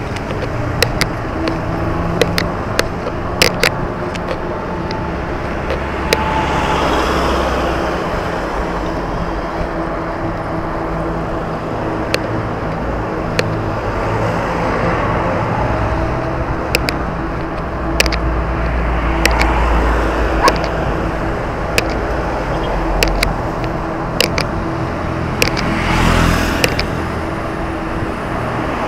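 Road and traffic noise heard from a moving bicycle: a steady rumble of passing vehicles and riding noise, broken by frequent sharp clicks and knocks.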